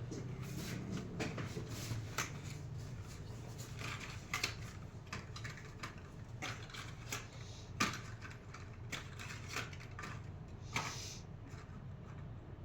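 Irregular clicks, taps and rattles of small parts and tools being handled during spark plug and coil pack work, with a sharper click near 8 s and another near 11 s.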